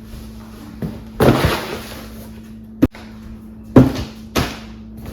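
A few knocks and thuds, two of them loud, with a sharp click in the middle, over a steady low hum.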